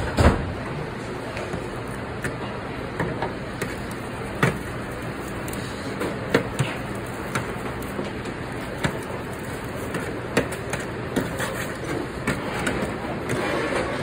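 Steady hum and hiss of commercial kitchen equipment, with scattered knocks and clatter through it. A loud bump about a quarter second in comes from the phone being handled.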